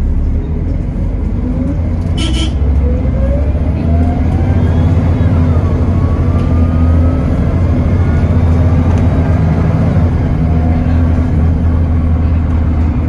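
Volvo B7TL double-decker bus's six-cylinder diesel and ZF Ecomat automatic gearbox heard from on board while the bus is under way: a steady low engine drone, with a whine that rises in pitch as it gathers speed. A brief high-pitched beep sounds about two seconds in.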